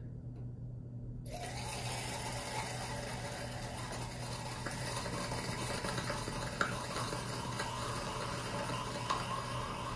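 Sugar candies (Smarties) burning in molten potassium chlorate in a test tube: a steady rushing hiss starts abruptly about a second in as the sugar combusts in the oxygen released by the decomposing chlorate, with two brief pops later on.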